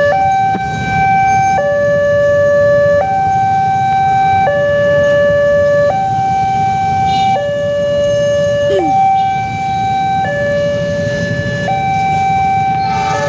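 Railway level-crossing warning siren sounding a two-tone alarm, a high and a low tone alternating about every one and a half seconds, warning of an approaching train. It is a new siren sound, fitted after the old one broke.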